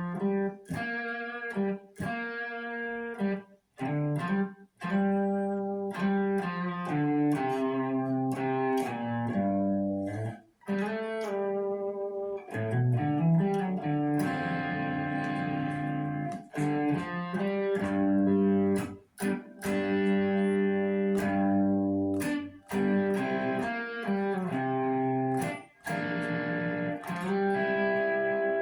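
Electric guitar played through an amp: a bluesy rhythm riff of ringing chords and single notes, picked sharply, with a few short choked gaps between phrases.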